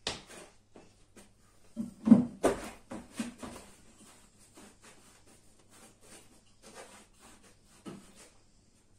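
Knocks and a low thump as a person sits down and handles home-gym cable pulley equipment, loudest about two seconds in, then a run of lighter clicks and taps that dies away near the end.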